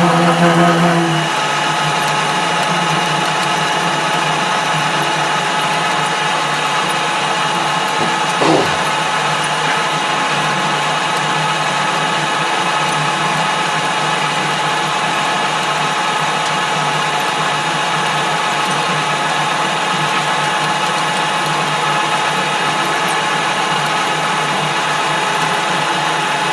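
Small metal lathe running steadily under load, its gear train and motor giving a steady whine while the tool takes a deep cut at slow revs and heavy feed, breaking the swarf into chips. There is a brief falling squeal about eight seconds in.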